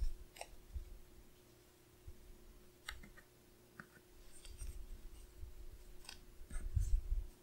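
Paper planner stickers being handled and pressed onto a planner page: scattered light clicks and paper rustles, with a few soft thumps of hands on the page near the end.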